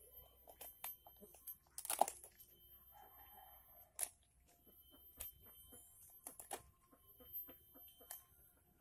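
Fingers picking apart rotten, crumbly bamboo and the stingless bee nest inside it: scattered small cracks, crunches and crinkles, with a louder crackle about two seconds in.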